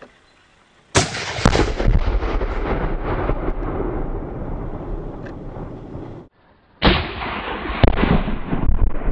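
A .30-06 rifle shot setting off a 4 lb Tannerite target: a sharp crack and a heavy blast about half a second apart, then a long rolling rumble that slowly fades. The sound cuts off suddenly, and the same crack, blast and rumble come again about seven seconds in.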